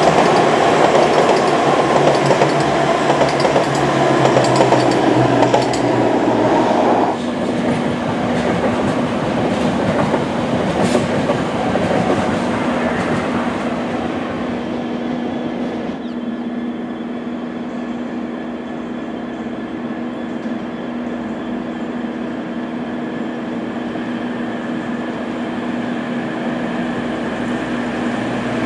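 Diesel passenger train running past. It is loudest for the first seven seconds, then drops suddenly to a quieter steady rumble with a low steady drone, and grows louder again near the end as a train comes through.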